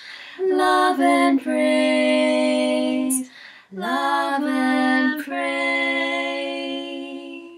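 Two young women singing unaccompanied in long held notes, with short breath pauses between phrases; the last note is held for about two seconds and fades away, closing the song.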